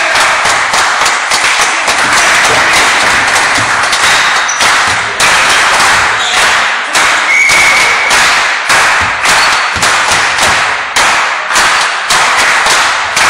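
Spectators in a sports hall clapping, with irregular loud thumps and bangs running through the noise.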